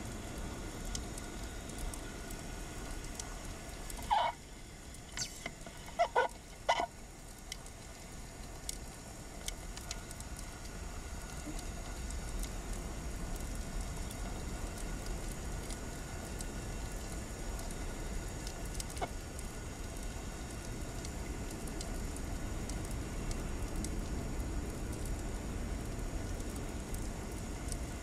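Underwater ambience picked up by the camera: a steady low rush with faint scattered ticks. It is broken about four seconds in, and again between six and seven seconds, by a few short pitched calls of unknown source.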